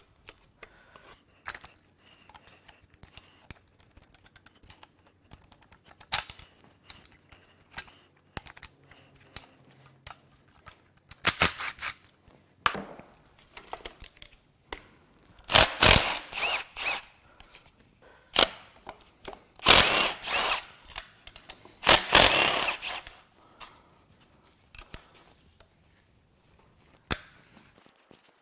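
Metal tools clinking and knocking on a Honda J35 V6 engine as the fuel injectors and rails are pried off, with several short bursts of a cordless ratchet running bolts out in the second half.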